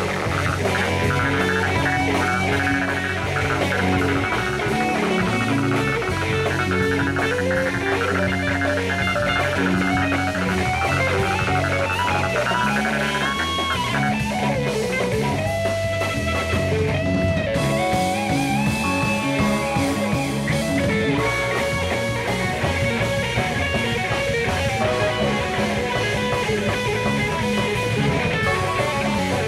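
Live jazz-funk band playing: drum kit, electric keyboard and electric guitar, with a lead line sliding up and down in pitch in the middle.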